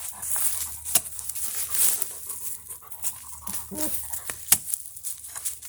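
A dog panting and whimpering, with a short pitched whine a little before 4 s and scattered sharp knocks throughout.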